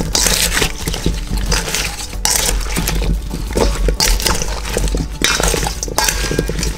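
Chopped raw vegetables being tossed and stirred with a spatula in a stainless steel mixing bowl: continuous scraping and rustling, with many short knocks of the spatula against the metal.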